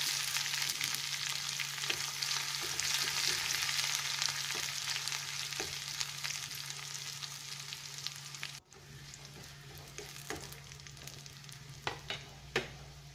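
A tempering of mustard seeds, dried red chillies, curry leaves and sliced shallots frying in hot coconut oil in a pan: a steady crackling sizzle, stirred. About eight and a half seconds in it drops suddenly to a much fainter sizzle, with a few clicks near the end.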